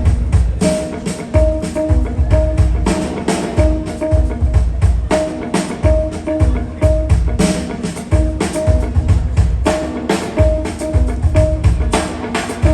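Jazz piano trio playing: piano, bass and drum kit in a steady groove, with a short note repeating about twice a second over busy drumming.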